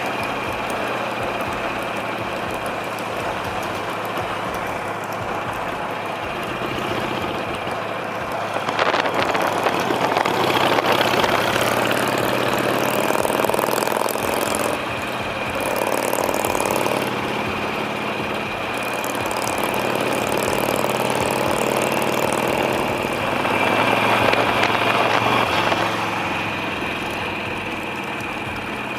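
Harley-Davidson Sportster's V-twin engine running steadily while riding, with two louder stretches of wind and road noise, about a third of the way in and again near the end.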